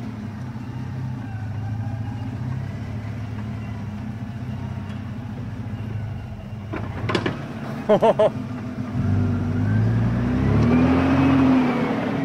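Toyota LandCruiser 80 Series engine running at low revs as the truck crawls through deep washout ruts, then revving up and back down in the last few seconds as it climbs out. A couple of short shouted calls come about two-thirds of the way through.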